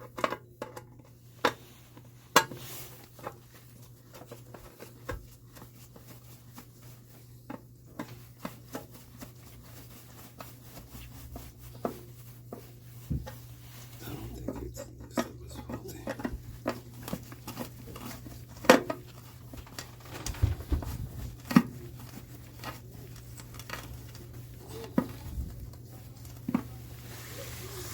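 Scattered sharp metallic clicks and clinks of parts and tools being handled during work on an electric water heater, over a steady low hum.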